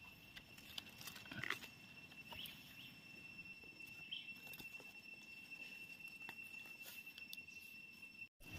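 Near silence: faint outdoor ambience with a thin, steady high-pitched tone and a few soft, scattered ticks.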